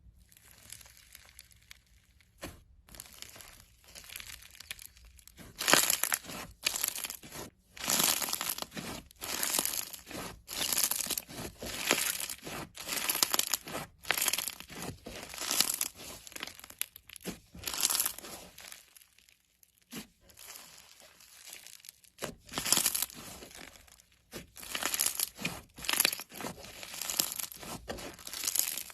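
Slime being squeezed and worked by hand, giving irregular bursts of crackling and popping with short pauses between handfuls.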